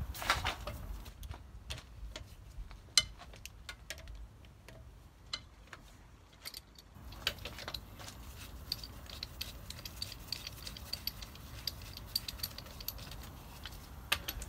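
Metal clinks of a steel wheel brace and wheel bolts being worked at a car's rear wheel hub, followed from about seven seconds in by a run of light, fairly even ticking.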